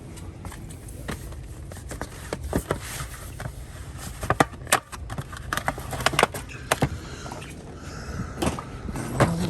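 Shopping cart rolling and rattling as it is pushed, with irregular clicks and knocks.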